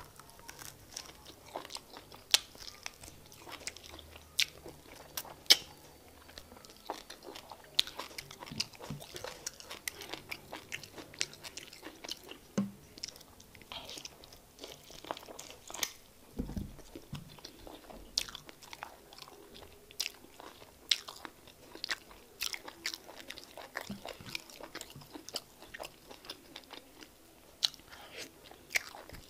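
A person eating Ijebu egusi soup and fufu by hand, chewing with frequent irregular wet smacks and clicks from the mouth.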